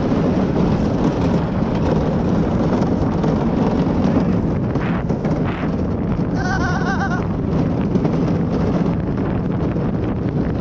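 Wind buffeting the GoPro's microphone over the steady rumble of a luge cart rolling down the track. About six seconds in there is a brief wavering, warbling cry.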